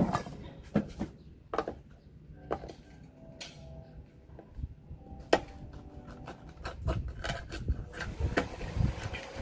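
Oyster shells clacking against each other and against a stainless steel bowl as a hand picks through them, with a dozen or so scattered knocks that come thicker near the end. The bowl rings briefly after some of the knocks.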